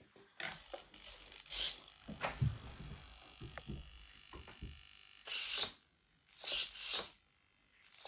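Close handling noises of a small foam RC plane's flap linkage being adjusted: irregular clicks, taps and scrapes of small parts, with a few short hissing rubs of hands on foam.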